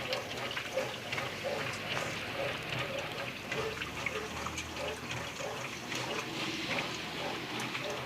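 Water running steadily inside a Whirlpool 15 kg washing machine.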